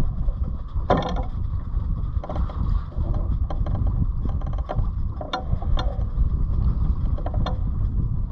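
Wind buffeting the microphone aboard a small sailboat under sail, a steady low rumble, with short knocks and rattles a few times.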